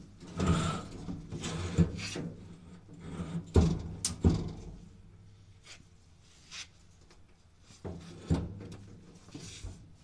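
A Maytag washing machine being shoved across the floor: scraping with several sharp knocks over the first few seconds, then quieter with a couple of knocks near the end.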